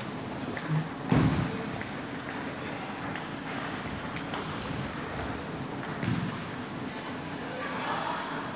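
Light pings of a table tennis ball off a bat and table between points, with a dull knock about a second in.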